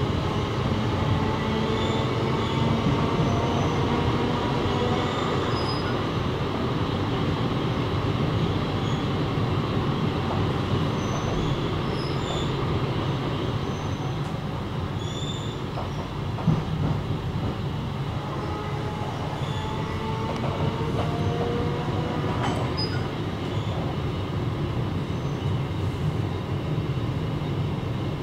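Passenger train running along the track: a steady rumble, with faint wheel squeal coming and going and a single knock about sixteen seconds in.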